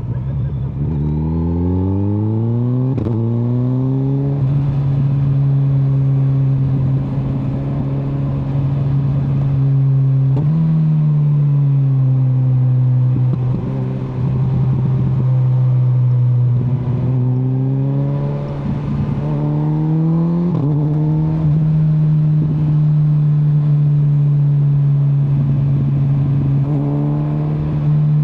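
2025 Kawasaki Z900's inline-four engine under way, climbing in pitch as it accelerates over the first few seconds, then holding steady revs with several brief dips and rises as the throttle is rolled off and on, and climbing again near the end.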